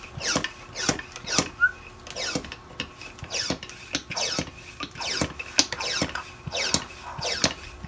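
Handheld vacuum-bag hand pump being pumped on a storage bag's valve, drawing the air out. Each plunger stroke gives a short, squeaky, falling whistle, about two a second and steady throughout.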